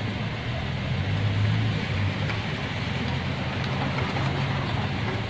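Steady low engine hum of a motor vehicle idling, under an even wash of noise.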